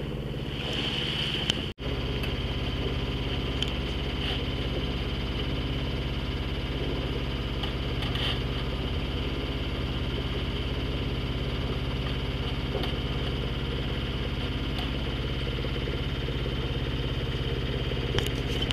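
A sailboat's inboard engine running steadily at constant revs while motoring, with a momentary dropout about two seconds in.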